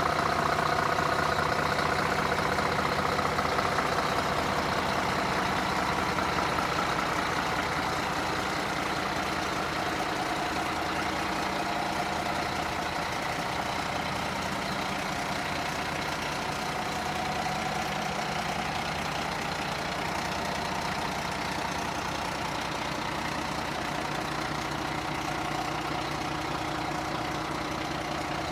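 Scania P114's straight-six diesel engine idling steadily, a little quieter after the first several seconds.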